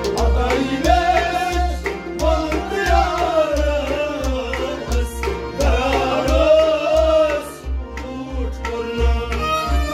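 Sufi devotional song performed live: a man sings over a harmonium, with a hand drum such as a tabla beating a steady rhythm of sharp strokes.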